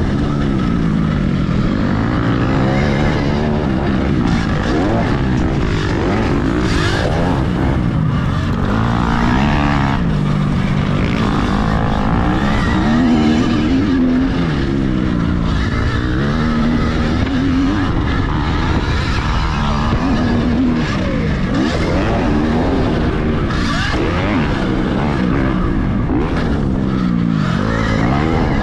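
Dirtbikes racing on a motocross track, the engine pitch rising and falling again and again as the bikes rev through corners and straights over a dense low rumble.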